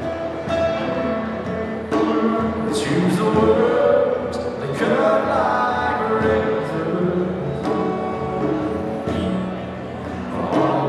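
Live band playing a song: acoustic guitar, electric guitar and electric bass with sung vocals.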